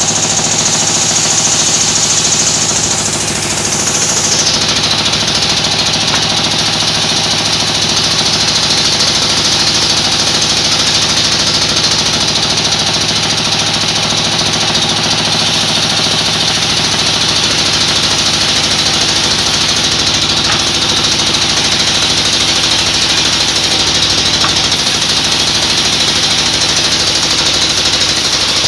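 Band sawmill running and cutting jackfruit logs: a loud, steady machine noise with a strong high hiss over a low hum. The hiss drops in pitch about four seconds in.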